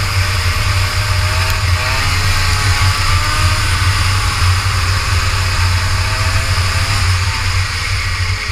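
Rotax Max Senior 125cc two-stroke kart engine running at speed from the kart's own onboard camera, its pitch rising and falling as the throttle is opened and lifted through the corners. A heavy low rumble runs underneath throughout.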